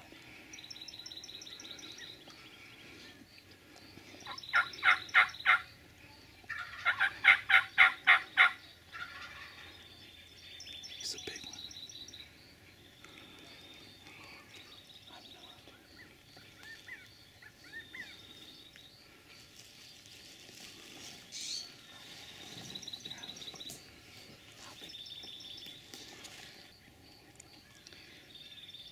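Wild turkey gobbler gobbling twice, each gobble a loud rapid rattle, about four seconds in and again about two seconds later, with songbirds chirping faintly around it.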